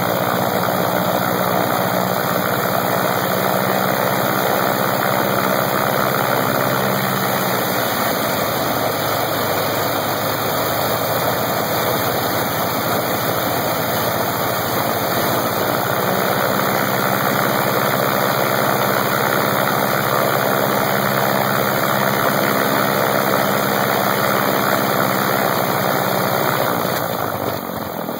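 Lycoming R-680 nine-cylinder radial aircraft engine running on a test stand with its propeller turning, a loud, steady propeller-driven engine sound. It eases off near the end.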